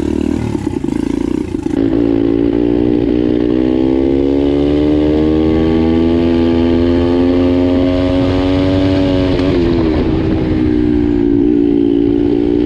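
Single-cylinder pit bike engine under hard acceleration while riding. Its pitch climbs steadily for about eight seconds, drops sharply about ten seconds in as the rider shifts up, then pulls again.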